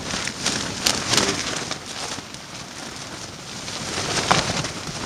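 Storm wind gusting against an REI tent, the tent's fabric flapping and crackling. The gusts build about a second in, ease off, then build again near the end.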